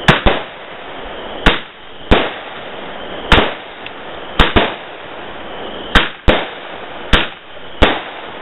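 Consumer fireworks going off: about ten sharp bangs at uneven intervals over the steady hiss of a spark-throwing fountain.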